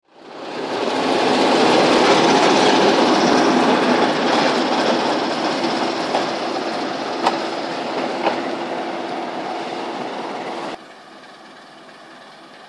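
Romanian Class 60 diesel-electric locomotive running close by: a loud, dense, steady noise that swells in over the first second, with two sharp clicks in the middle. Near the end it cuts to a much quieter, more distant locomotive engine.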